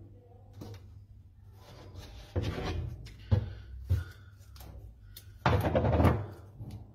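Sticky tape pulled off the roll in two noisy pulls, each under a second long, the second one louder, with two short knocks on the tabletop between them.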